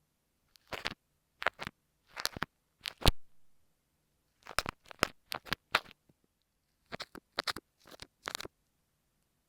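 Kinetic sand slime squished and pressed against an earphone microphone in slow, separate strokes, each a brief crackle with silent pauses between them. A sharper click about three seconds in is the loudest.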